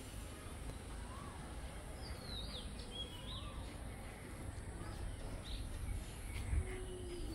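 Small birds chirping: short whistled calls that rise and fall, scattered through, over a low steady rumble.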